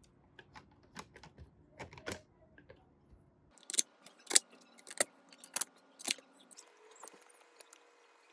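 Small hard parts being handled, a series of irregular clicks and light clatters that get louder about three and a half seconds in.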